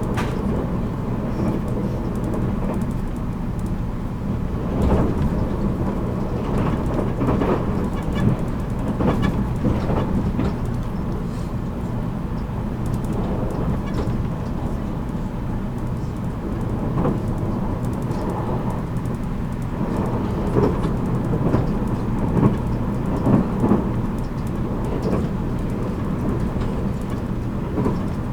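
Running noise of a 783 series electric train's motor car, heard inside the car: a steady rumble of wheels and motors on the rails, with irregular knocks and rattles scattered through it.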